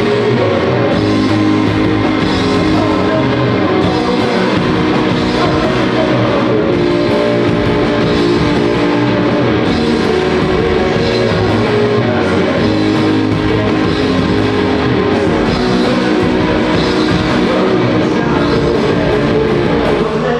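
A live rock band playing a song at full volume: electric guitars, drum kit and vocals, with the music stopping right at the end.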